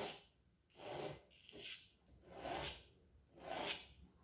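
Pencil rasping across drawing paper in about five strokes, each about half a second long and roughly a second apart.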